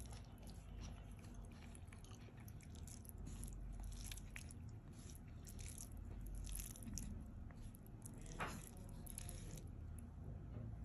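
Fingers mixing and mashing cooked rice into lentil curry on a plate: soft, wet squishing with a run of small, irregular clicks.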